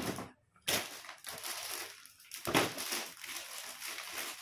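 Plastic saree cover crinkling and rustling as it is handled, with louder crackles about a second in and again past the middle.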